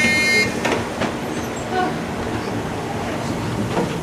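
Interior of an electric commuter train standing at a station: a steady low hum from the train's equipment, with a few scattered knocks and clicks as the passenger doors start to slide shut.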